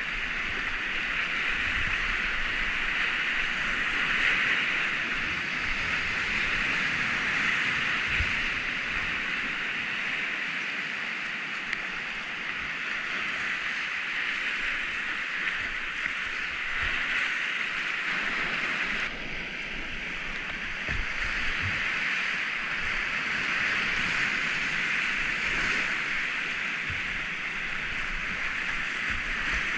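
Whitewater on the Enns river at about 75 cubic metres per second, a steady loud rush of rapids heard from a kayak. About two-thirds of the way through the sound abruptly turns duller for a moment.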